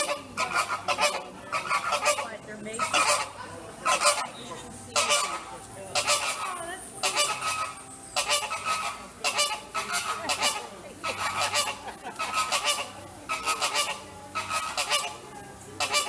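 Flamingos honking over and over in goose-like calls, often several in quick succession.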